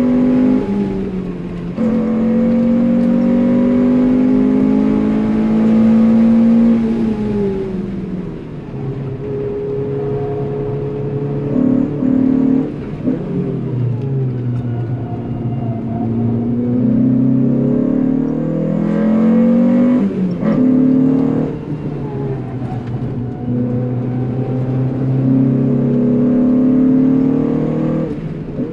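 Renault Clio 182 Cup's 2.0-litre four-cylinder engine heard from inside the cabin, revving up through the gears on track. Its pitch climbs, breaks at each gear change and falls back when the driver lifts, several times over.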